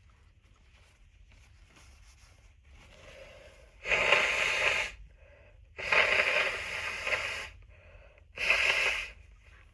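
A person blowing their nose three times, each a forceful rush of air lasting about a second, with a fainter breath just before the first.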